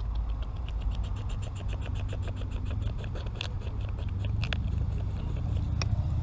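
A rapid, even train of small clicks, several a second, stopping about four and a half seconds in, then a few single louder clicks: a southern puffer croaking as it is held out of the water.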